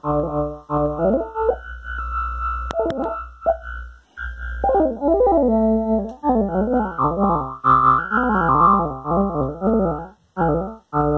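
Moog Subharmonicon synthesizer playing a sequenced riff of stepped notes over a steady low bass tone. About four seconds in, the notes start gliding up and down in quick repeated sweeps. The sound drops out briefly twice near the end.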